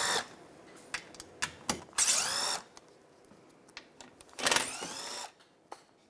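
Cordless drill/driver with a 7 mm socket spinning screws out in short bursts: the end of one run at the start, then two more runs about two seconds and four and a half seconds in, with the motor pitch rising and falling in each. Small clicks and taps of handling come between the runs.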